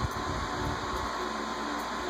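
Steady background room noise with a faint hum, and a few soft low thuds in the first second.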